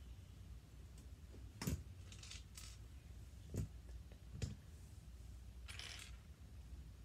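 Small plastic LEGO pieces clicking and knocking as they are handled on a LEGO baseplate: three short knocks a second or two apart, then a brief rattle near the end.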